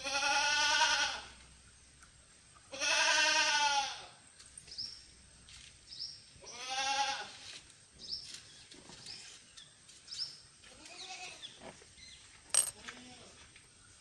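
A goat bleating: three long, quavering calls of about a second each, at the start, about three seconds in and about six seconds in. Fainter calls follow, and a single sharp click comes near the end.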